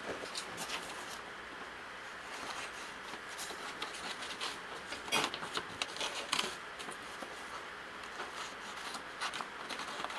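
Scissors cutting through a taped-together paper pattern: irregular snips with the rustle of the paper sheet being handled, a few snips louder about halfway through.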